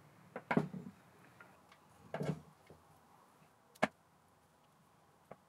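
Light clicks and knocks of small steel lathe parts being handled: the saddle, round bed rails and lead screw of an Emco Unimat SL moving against each other. There are four or five separate knocks, the sharpest a single click a little before the end.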